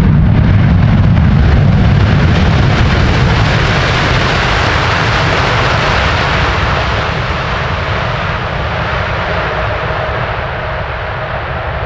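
Airliner engines running loud, with a heavy deep rumble at first that steadily fades as the aircraft moves away. A faint steady tone comes in about halfway.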